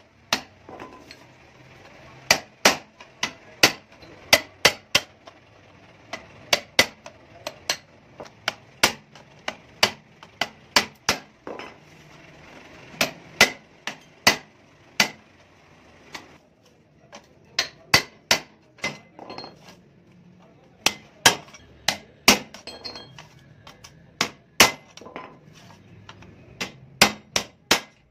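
Small hammer striking a steel punch held on an old clutch plate, sharp metal-on-metal blows knocking out the rivets of the worn friction lining. The blows come singly and in quick runs of two or three, with a couple of short pauses a little past halfway.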